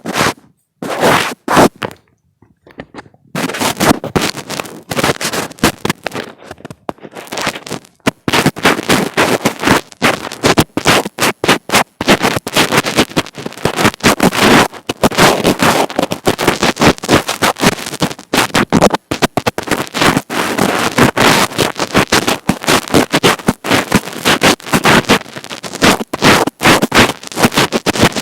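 Fingers rubbing and tapping directly on an earphone microphone: loud, dense crackling and scratching handling noise in quick irregular strokes, with a short pause about two seconds in.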